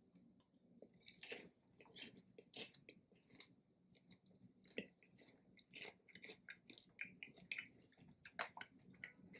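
A person chewing a mouthful of popcorn drizzled with chocolate and peanut butter: faint, irregular little crunches and mouth clicks, about one to three a second.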